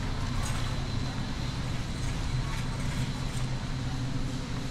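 Steady low hum of a large warehouse store, with a shopping cart rolling over the concrete floor and a few faint light clicks.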